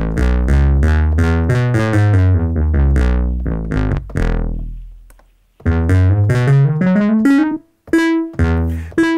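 Synthesizer sound played note by note from Maschine MK3 pads, climbing up an E major scale over about two octaves. The first run fades out around the middle; a second, quicker upward run follows, ending on one note struck twice.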